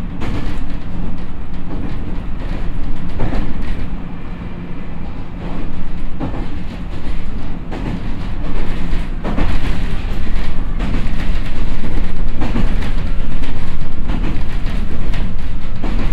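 Cabin running sound of a JR East E127-0 series electric train (Toyo IGBT-VVVF, MT71 traction motors) at speed: a steady rumble of steel wheels on rail with a low hum, and clacks every few seconds as the wheels cross rail joints. It grows louder through the second half.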